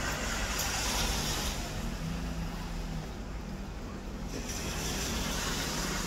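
A low engine hum running steadily, mixed with the hiss of wind and sea that swells and fades every second or two.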